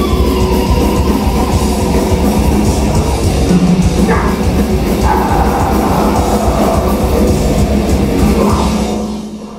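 Live heavy metal band playing loud: distorted guitars with a drum kit. The music cuts off about nine seconds in as the song ends.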